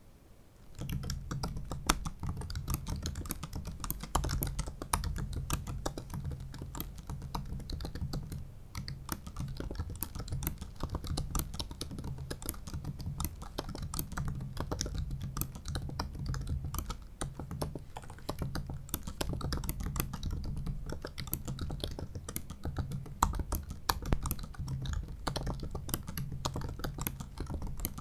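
Continuous typing on a 2017 15-inch MacBook Pro's built-in butterfly-switch keyboard: a dense, rapid run of light key clicks that starts about a second in.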